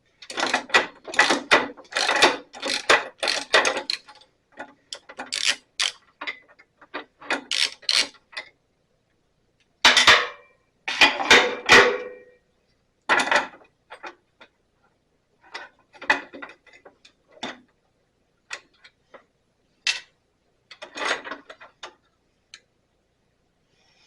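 Socket ratchet wrench clicking as bolts are backed out. It runs in a quick, dense string of clicks for the first few seconds, then in shorter bursts with pauses between them.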